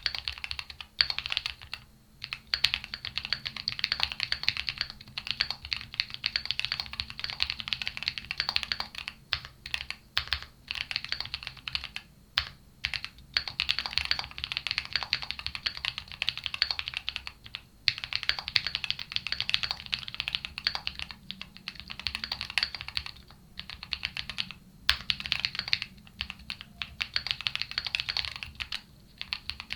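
Continuous fast typing on a gasket-mounted aluminium Qwertykeys QK75 mechanical keyboard with KNC Red Jacket linear switches, PC plate, Poron foam and Cherry-profile PBT keycaps, giving a clean, punchy key sound, with a few brief pauses between bursts.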